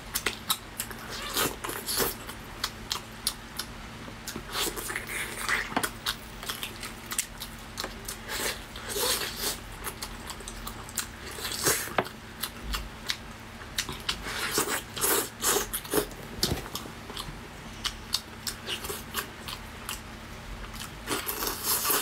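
Close-miked chewing and biting of braised lamb leg meat: many irregular smacks and clicks of the mouth as it is eaten.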